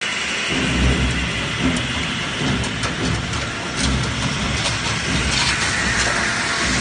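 Automatic steel rod bending machine running, its motor and feed rollers giving a steady mechanical noise with a low hum that swells and fades every second or so, and a few sharp clicks in the middle.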